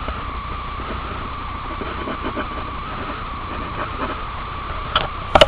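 Steady hiss with a faint whine, with light scratching of a pen inking a drawing on paper. Near the end come a few sharp knocks and a rustle as the paper is shifted.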